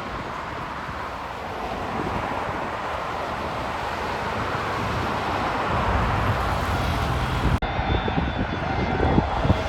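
Jet airliner engines growing steadily louder as the plane draws near, with a whine coming in near the end. The sound drops out for an instant about three-quarters of the way through.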